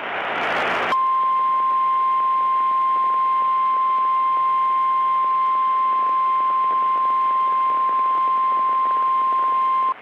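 Emergency Alert System alert audio: the end of a buzzing SAME digital header burst, then the National Weather Service's single steady 1050 Hz attention tone, held for about nine seconds and cutting off just before the voice message.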